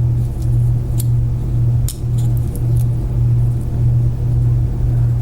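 A steady low hum, with a few faint sharp metal clicks as a lock cylinder and its follower are handled.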